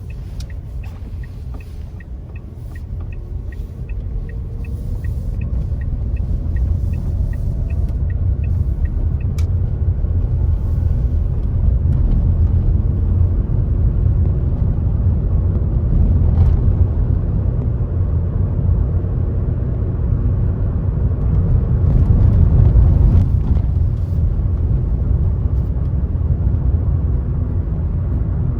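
Car road noise: a low rumble of engine and tyres that builds as the car speeds up over the first ten seconds or so, then holds steady. A turn-signal indicator ticks steadily and stops with a click about nine seconds in.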